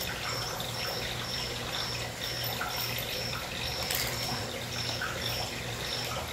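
Steady background noise of a reptile shop: a trickling, water-like hiss over a low hum, with a short high-pitched chirp repeating about twice a second.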